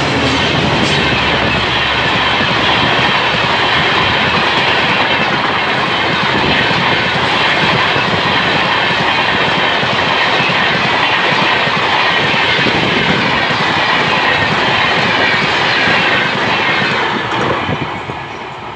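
Passenger express train's coaches rushing past at speed, a steady wheel-on-rail roar with fast clatter. Near the end it drops off as the last coach passes and the train draws away.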